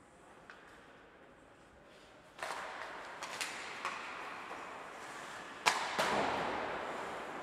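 Ice hockey play on the ice: several sharp clacks of sticks and puck, then a loud bang and a second one just after, about two-thirds of the way through. A rough scraping hiss follows and fades slowly.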